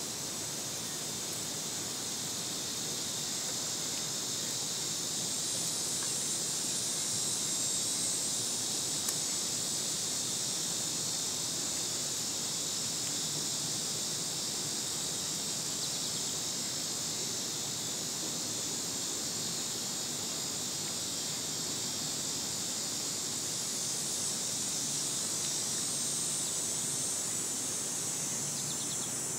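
Cicadas buzzing in a steady, high-pitched insect chorus that swells a little twice.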